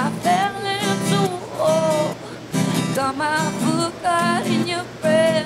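A woman singing with a strummed acoustic guitar, holding her notes with a slight waver.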